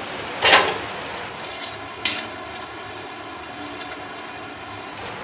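Cooking oil sizzling steadily in a steel wok as fried sweet potato chunks are lifted out with a metal strainer and spatula. A sharp metal clatter about half a second in and a lighter one about two seconds in.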